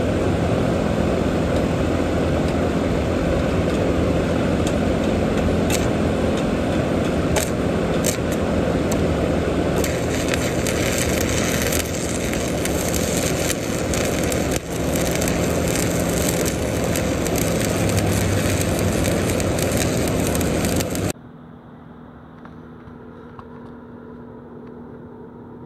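Stick-welding arc from a 7018 electrode crackling steadily as a straight stringer bead is run. It cuts off abruptly near the end, leaving only a much quieter steady hum.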